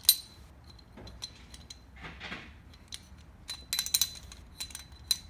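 Steel balls and cage of a Volkswagen bus CV joint clicking and clinking against the inner race and body as they are twisted by hand into place, with a light metallic ring. A sharp click comes right at the start, a short scrape about two seconds in, and a quick run of clinks near the four-second mark.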